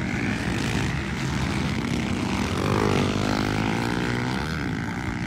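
Several motocross dirt bike engines running and revving on the track. One bike's pitch rises and then falls about three seconds in.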